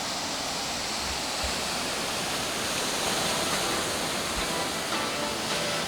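Steady rushing wash of ocean surf along the beach. Faint guitar music comes in near the end.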